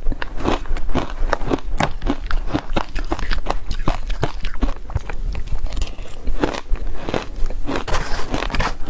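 Soft shaved ice dusted with matcha powder being bitten and chewed, a quick, steady run of crisp crunches several times a second. Near the end a metal spoon scrapes into the ice in the plastic tub.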